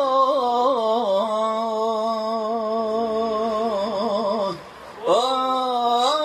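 A man singing an Arabic religious song (inshad) as a long melisma: one held note ornamented with quick wavering turns. About four and a half seconds in the voice breaks off for half a second, then slides up into the next held note.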